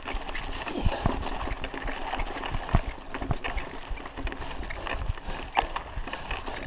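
Raleigh Ascent mountain bike rolling over a rough, stony dirt track: tyres crunching on gravel, with irregular knocks and rattles from the bike jolting over the bumps, over a steady low rumble.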